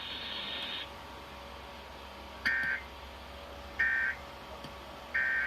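Emergency Alert System end-of-message data bursts: three short, identical bursts of warbling digital tones about 1.3 seconds apart, signalling the end of the flash flood warning broadcast. A hissy noise fades out about a second in, and a faint steady hum runs underneath.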